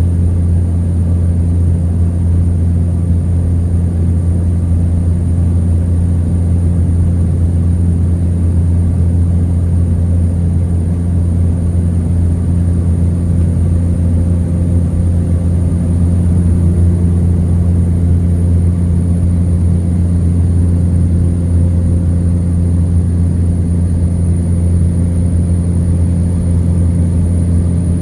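Cessna Caravan's turboprop engine and propeller running with a loud, steady drone that holds unchanged throughout, with a faint thin high whine above it.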